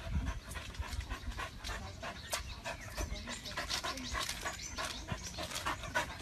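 A dog panting in quick, short breaths.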